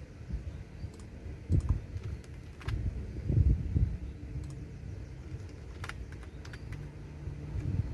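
Computer keyboard being typed on: irregular key clicks at an uneven pace, over a low rumble with a few heavier thuds around the middle.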